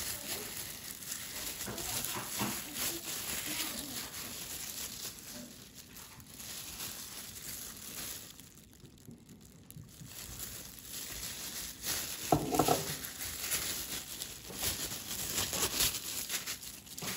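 Plastic wrap and a thin plastic glove crinkling and rustling as a gloved hand handles raw meat on a foam tray. It goes quiet for a moment about halfway through, and there is a brief pitched sound about twelve seconds in.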